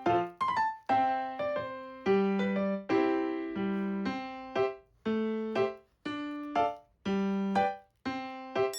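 Background music: a light piano or electric piano tune, notes struck one after another and left to ring.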